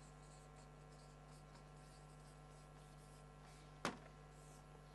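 Faint squeaking strokes of a felt-tip marker writing on flip-chart paper, with a single short knock about four seconds in.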